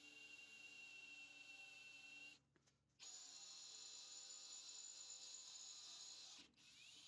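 Cordless drill boring a hole through a snowmobile's metal skid rail, running with a steady whine. It stops about two and a half seconds in and starts again half a second later at a higher pitch. It stops once more near the end, then gives a short rising spin-up.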